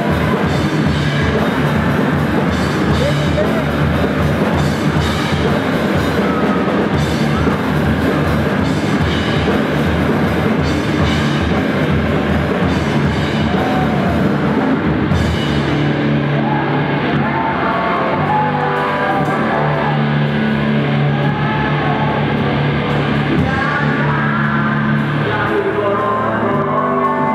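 Heavy rock band playing live: distorted electric guitars, bass and a fast-hit drum kit with crashing cymbals. About halfway through, the cymbals and fast drumming drop out, leaving held guitar and bass notes over a slower beat.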